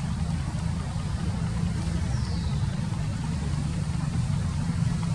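Steady low engine rumble, like a vehicle idling, with no change in pitch or level.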